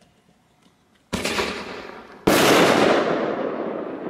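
A 2-inch aerial firework shell is fired from its mortar tube about a second in, with a sharp launch bang. About a second later the shell bursts in the sky with a louder boom, which fades away slowly over the next two seconds.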